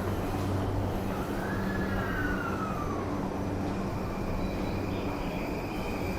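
Electric commuter train rumbling on a station platform, with a whine that rises then falls about one to three seconds in, over a steady low hum.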